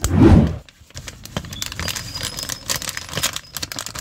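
Plastic retail bag of a USB-C to HDMI adapter crinkling and rustling as it is handled and opened, with a dense run of irregular crackles. It opens with a loud half-second burst of handling noise.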